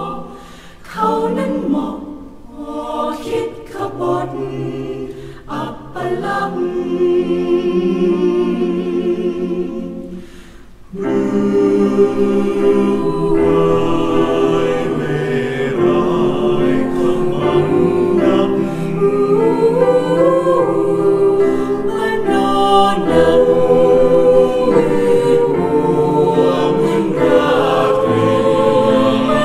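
Mixed choir singing in multi-part harmony. For the first ten seconds or so the singing comes in short phrases with brief breaks, then from about eleven seconds in it swells into full, sustained chords.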